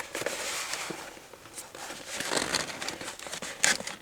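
Rustling and handling noise with scattered light clicks, and a sharper click about three and a half seconds in.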